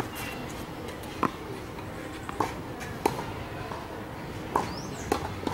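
Tennis rally on a clay court: balls struck by rackets and bouncing, six sharp pops at uneven spacing.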